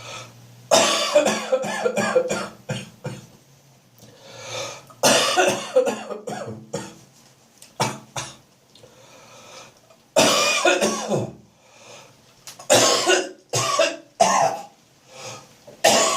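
A person coughing in repeated bouts with short pauses between them, mixed with hawking throat-clearing: a wet, chesty cough with phlegm building up on the chest.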